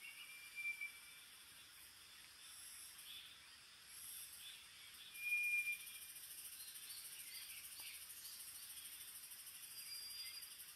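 Forest birds and insects: two brief steady whistles at one pitch, about a second in and about five seconds in, with soft scattered chirps between them. A high, finely pulsing insect trill runs steadily from about five seconds in.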